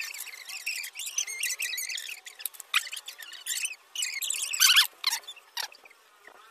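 Toothbrush bristles scrubbing a wet plastic keycap from a Dell KB216 keyboard in soapy water, rubbing and squeaking in short, irregular strokes. The strokes ease off near the end.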